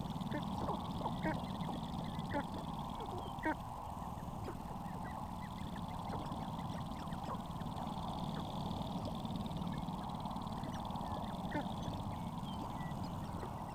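Sharp-tailed grouse displaying on a lek: a scattered chorus of short clucking and cackling notes from several males, over a steady low rumble.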